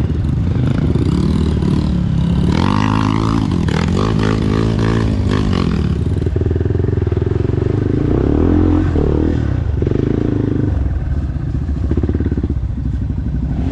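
Dirt bike engine running off-road, its revs rising and falling repeatedly, with the strongest revving about three to six seconds in.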